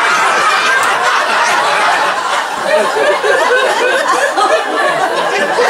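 Audience laughing, many voices overlapping in a steady, continuous wave of laughter.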